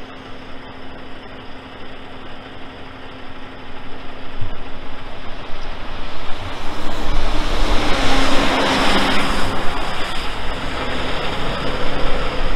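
Diesel engine of a loaded tractor-trailer tanker truck pulling away. A steady engine hum with tyre and road noise builds to its loudest about eight seconds in as the rig passes, then eases off slightly.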